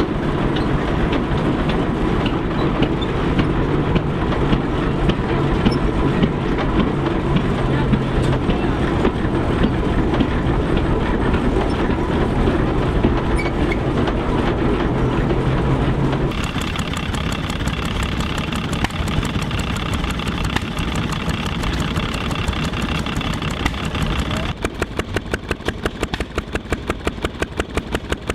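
Antique engines and machinery running in three takes: a heavy steady rumble with a low hum, then after about 16 seconds a different machine with a steady high whine and fine rapid clatter, and from about 25 seconds a regular rhythmic beat of a few strokes a second.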